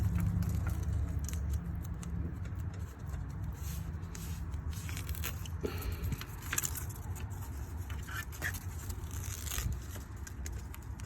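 Scratchy rustling, crackling and scraping as self-adhesive foam weather stripping is peeled from its backing and pressed onto a door frame, in short irregular bursts over a steady low rumble.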